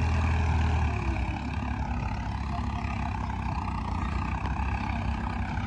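New Holland 3630 tractor's diesel engine running under load as it pulls a trolley heaped with manure through soft ploughed soil. The deep low drone eases about a second in, then the engine runs on steadily.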